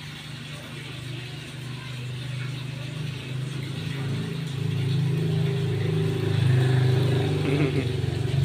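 A motor vehicle engine running steadily, growing louder about halfway through and loudest near the end.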